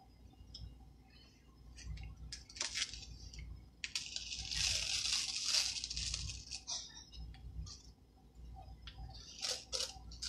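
A sticky silk-screen stencil transfer being peeled off a board, giving a rustling, tearing peel of about two seconds in the middle, with a few sharp clicks and taps of handling before and after it.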